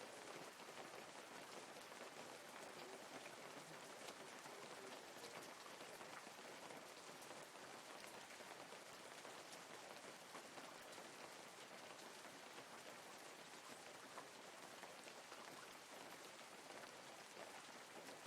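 Faint light rain falling steadily: a soft even hiss with scattered ticks of individual drops.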